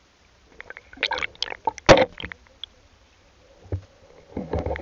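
Muffled water sloshing and knocking heard through an underwater camera: a cluster of sharp clicks and splashy knocks with one loud thud about two seconds in, then more muffled swirling near the end.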